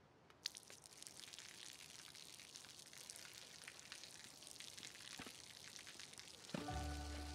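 Thin stream of water falling and splattering on pavement, a steady crackly hiss with tiny drips and pops. Soft music with low notes comes in near the end.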